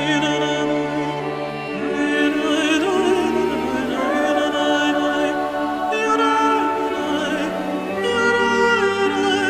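Background music: a sung melody with vibrato over long, held low notes, in an operatic style.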